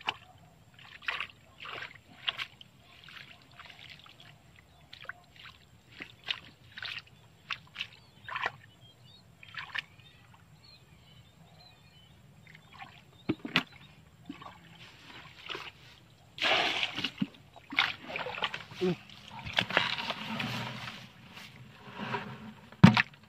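Hands sloshing and splashing in shallow muddy canal water while groping for fish by hand: short separate splashes at first, then a denser, louder stretch of splashing about two-thirds of the way through. A single sharp knock near the end.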